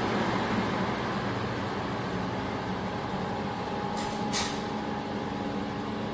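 Fiber laser welding machine running, a steady hum with fan noise. Two short hisses come close together about four seconds in.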